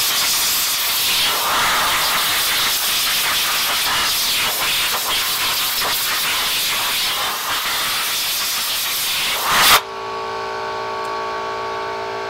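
Compressed-air blow gun blasting dust off a drum-brake backing plate and hub: a loud, steady hiss that cuts off sharply about ten seconds in. A quieter steady hum with several pitches carries on after it.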